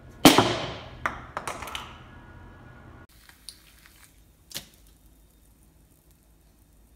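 A loud sharp impact that rings and fades over about a second, followed by three lighter knocks. After a change of scene, a light click and then a single soft smack as a tossed egg lands on the glass top of an electric stove.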